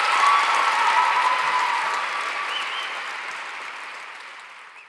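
Large theatre audience applauding after the talk's closing words. It swells in the first second, then fades steadily away.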